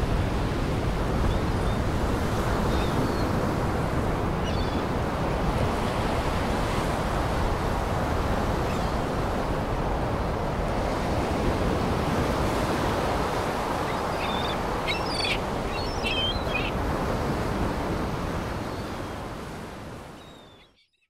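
Steady wash of surf, with a few short bird chirps about fifteen seconds in; the sound fades out near the end.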